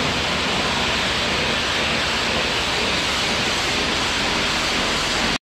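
High-pressure water jet from a powerful tractor-mounted pressure washer spraying steadily onto shed walls, a continuous hiss as it strips years of dirt off. It cuts off abruptly near the end.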